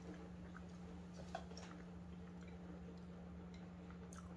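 Faint chewing with a few soft mouth clicks, over a steady low hum.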